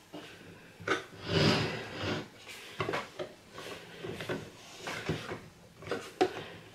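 Hands handling the plastic body of a Stirling sewing machine: scattered light clicks and knocks, with a longer rub of plastic about a second in.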